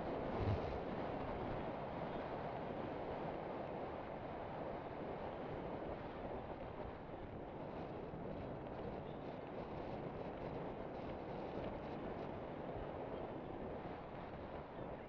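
Steady wind rushing over the microphone of a camera riding on a mountain bike, mixed with the bike's tyres rolling over a gravel dirt road. A short bump about half a second in.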